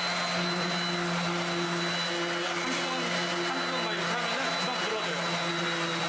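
Electric random orbital sander running steadily on a wooden cutting board, a high motor whine over a low hum and the hiss of the pad on the wood.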